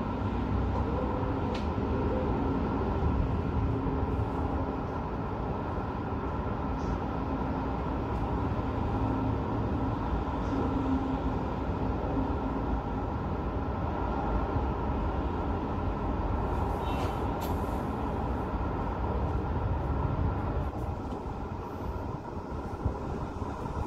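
Steady rumble of city road traffic heard from high above, with vehicles running along the road below.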